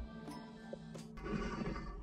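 Soft background music, with a sharp click about a second in followed by a faint hiss.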